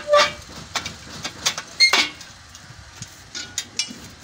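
Irregular metallic clinks and taps of bolts, washers and a spanner being handled against a steel battery rack during assembly. The two loudest clanks come just after the start and about two seconds in, the second with a short ring.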